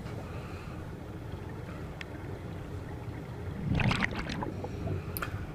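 Underwater camera audio on a scuba dive: a steady dull rumble, with a short rush of regulator exhaust bubbles about four seconds in.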